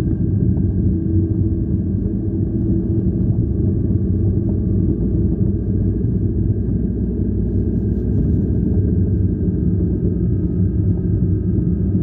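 Car interior noise while driving on a snow-covered road: a steady low rumble of engine and tyres, with a faint steady whine above it.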